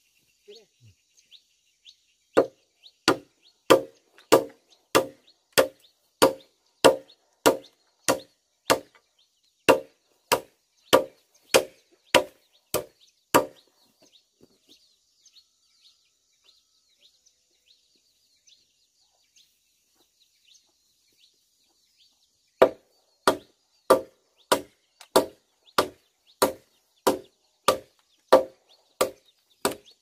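A machete chopping bamboo in steady strokes, about three every two seconds. The chopping stops for several seconds midway, then starts again.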